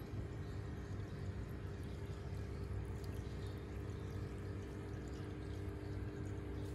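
Aquarium pump humming steadily, with water trickling.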